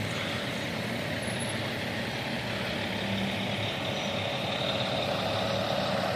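A vehicle engine running steadily at low speed, growing gradually louder over the last few seconds.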